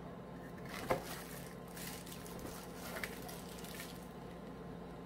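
Crinkling of thin plastic bags around power adapters as they are lifted out of a cardboard pulp tray, with a light knock about a second in. The rustling fades out after about four seconds.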